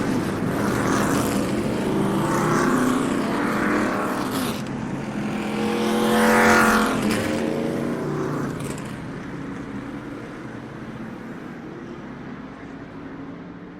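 NASCAR stock cars' V8 engines at racing speed, passing one after another with the pitch dropping as each goes by. The loudest pass comes about six and a half seconds in, then the engines fade away.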